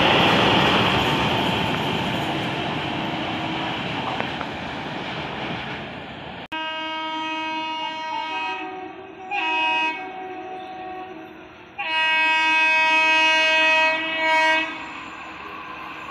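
BOXN open freight wagons rushing past at speed, their rumble fading over the first six seconds. Then an approaching WAP-4 electric locomotive sounds its horn: a steady blast, a louder short one about nine seconds in, and a long loud blast from about twelve seconds with a brief one right after.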